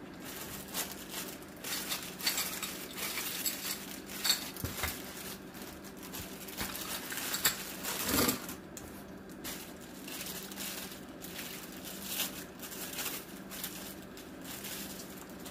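Packaging being handled: rustling, crinkling and small clicks and knocks as the box and wrapped parts are moved about, with the loudest knocks about seven and a half and eight seconds in and quieter handling afterwards.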